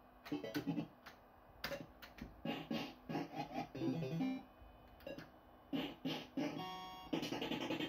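Barcrest Alphabet fruit machine playing its short electronic jingles and bleeps, broken by sharp clicks, as a game is played and the reels spin; it goes quieter about a second in and picks up again.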